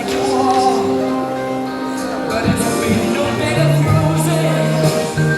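Pop music with vocals played over the hall's loudspeakers.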